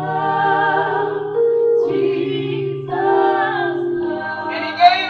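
Gospel choir singing a song in phrases, with short breaks between lines, over steady held low accompaniment notes.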